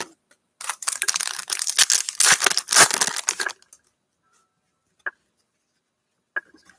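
A football trading-card pack's wrapper being torn open and crinkled for about three seconds, followed by a couple of faint clicks.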